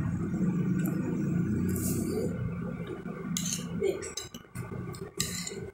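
Metal fork and spoon clinking and scraping against a glass plate of food, with several sharp clinks in the second half.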